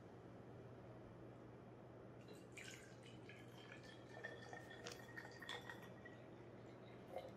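Water pouring from a large plastic water bottle into a small baby feeding bottle: a faint trickle with drips and splashes, starting about two seconds in and running for a few seconds.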